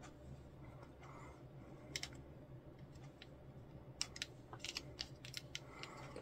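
Faint small clicks and taps of hands handling plastic model kit parts and tools while gluing, a couple near two seconds in and a quick flurry in the last two seconds, over a low steady hum.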